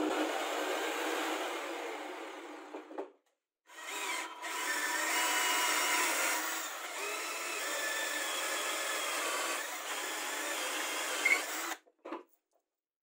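Cordless drill boring through plywood, running steadily for about eight seconds and then stopping; a steady mechanical noise fades out before it, and a couple of short knocks follow near the end.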